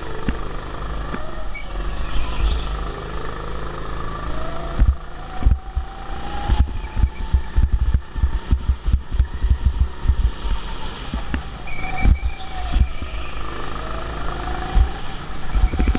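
Go-kart running hard around a track, heard from a camera mounted on the kart: the motor's pitch rises and falls with the throttle through the corners over a constant rumble and rattling knocks from the chassis.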